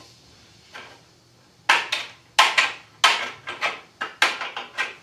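Metal shears snipping through coated wire mesh screen: a quick series of sharp metallic snips, about two a second, beginning about a second and a half in.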